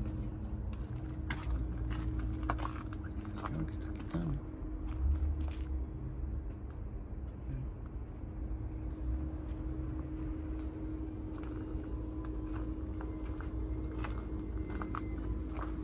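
Outdoor junkyard ambience: a steady low hum over a continuous low rumble, with scattered light clicks and taps in the first few seconds.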